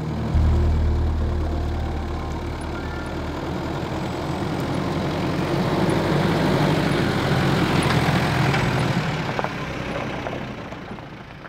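Hyundai Galloper SUV driving slowly up a dirt track, its engine running with tyre noise on the dirt. It grows louder as it approaches, is loudest as it passes close by and then eases off.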